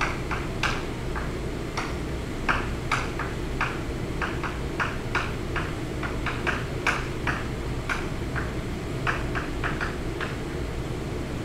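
Chalk writing on a blackboard: a quick, irregular run of short taps and scratches, several a second, over a steady low room hum.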